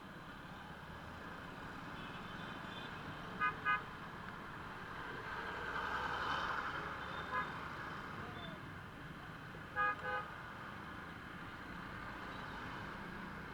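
Vehicle horn tooting in short beeps over steady road traffic noise: a quick double beep a few seconds in, a single beep a little past halfway, then another double beep. Between them a vehicle swells up and passes.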